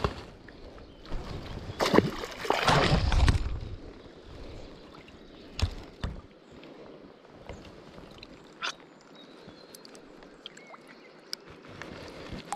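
River water splashing and sloshing around a hand-held chub about two seconds in, lasting a second or so, followed by quieter handling noise with a few light clicks over steady flowing water.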